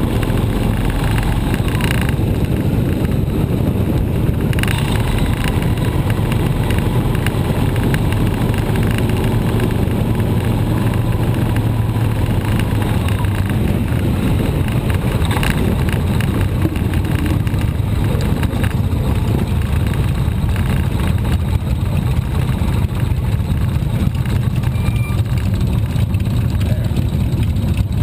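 Motorcycle engine running while riding, with steady wind rumble on a bike-mounted action camera's microphone.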